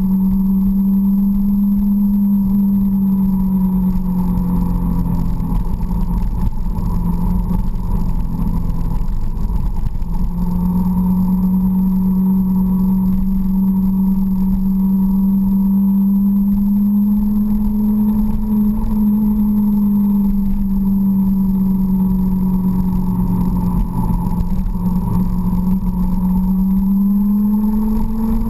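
Motorcycle engine running steadily at cruising revs through corners, with wind rumble on the microphone. The engine note drops for a few seconds around the middle and climbs again near the end as the throttle changes.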